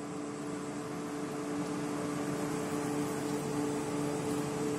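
Steady machine hum over an even hiss, holding two constant low tones without change.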